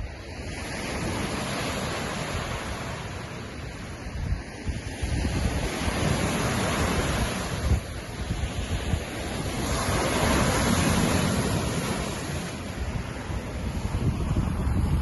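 Lake waves washing against the shore, swelling and ebbing every few seconds, with wind buffeting the microphone in a low rumble.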